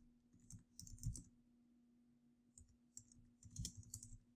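Faint computer keyboard typing: short key clicks in quick, irregular clusters.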